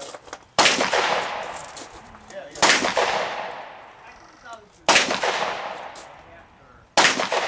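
Pistol firing four single shots, about two seconds apart, each shot followed by a long echoing decay.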